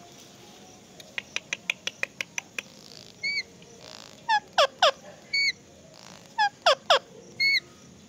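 Rose-ringed parakeet calling while being stroked: a quick run of about ten sharp clicks, a few short high chirps, and two pairs of loud squawks that sweep steeply down in pitch, the loudest sounds here.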